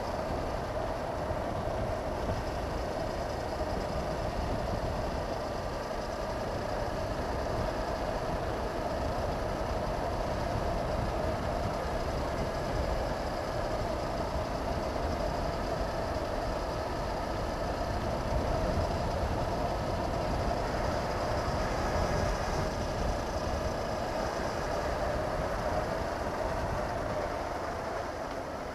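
Wind rushing over a helmet-mounted camera at road speed, with the Honda CB500X's parallel-twin engine running steadily underneath.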